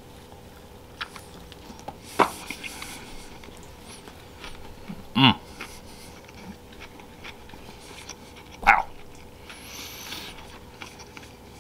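A man quietly chewing a bite of soft chicken taco against a faint steady hum, broken by three short, sharp sounds about two, five and nine seconds in, the middle one with a low voiced pitch.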